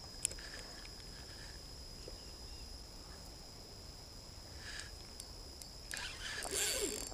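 Faint outdoor quiet with a thin, steady high-pitched insect tone. A single sharp click comes just after the start as the spinning reel is handled, and rustling and handling noise from the reel and rod builds near the end.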